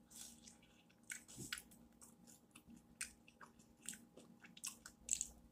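Faint close-up chewing: a person eating a mouthful of food, with scattered, irregular wet mouth clicks and smacks.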